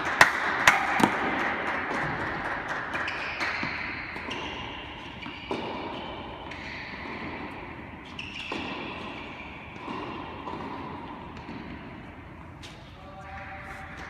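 Tennis ball hit by a racket and bouncing on the indoor court: a few sharp hits in the first second, echoing in the large hall. Afterwards, scattered voices calling out, ringing in the hall's echo.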